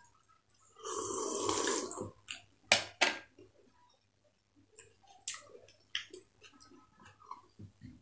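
A loud slurp, about a second long, of fuchka water drunk from a small glass bowl, followed by two sharp knocks and then scattered small clicks of eating.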